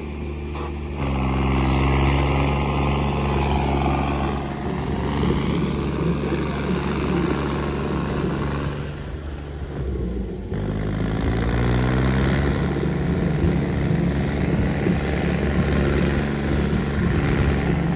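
Tractor diesel engines revving hard under heavy pulling load in a tractor tug-of-war. The pitch rises about a second in and again around ten seconds in.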